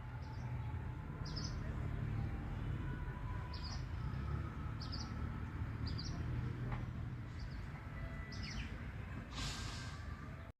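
A small bird calling outdoors with short high chirps, one every second or so, over a steady low rumble. A brief rush of noise comes near the end.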